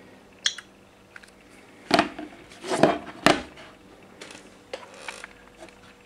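Two smartphones being handled and set down on a wooden desk: a light click about half a second in, three loud knocks between about two and three and a half seconds in, then a few softer taps.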